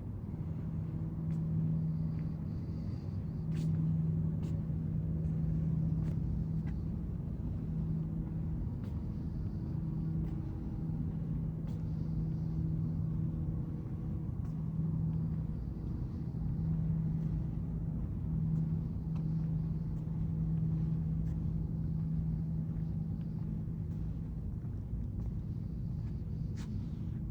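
Steady machine hum, an even low tone with overtones over a low rumble, swelling and fading slightly, with scattered light clicks.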